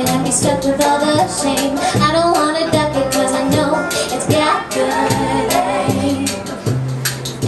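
Live acoustic folk-pop band: several women singing together over ukulele, banjo, bass and hand percussion.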